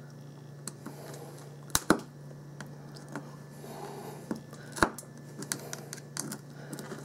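A pointed metal tool scraping glue off a chip on a small switching power-supply circuit board: irregular light scratches and clicks, with a few sharper ticks, twice close together about two seconds in and once near five seconds.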